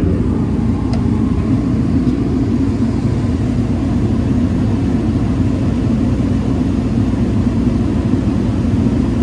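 Steady, loud, low rumble of a space heater running to warm the room.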